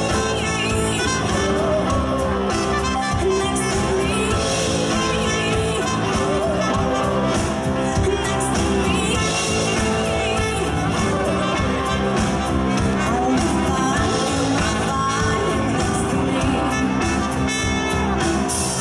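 Live band playing a song with a woman singing lead over drum kit, electric bass and guitar, with a trumpet playing along.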